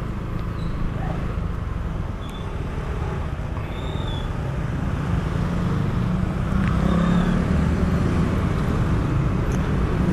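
Steady road noise and low wind rumble from riding a motorbike along a road, getting a little louder about halfway through.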